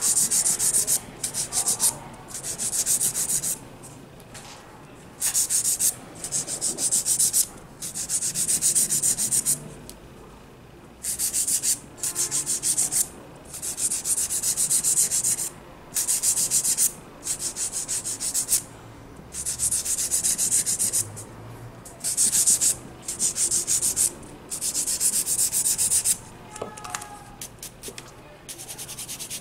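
Hand nail file scraping back and forth across gel-polished fingernails in quick strokes, shaping the nail tips. The filing comes in repeated bursts of a second or two with short pauses between.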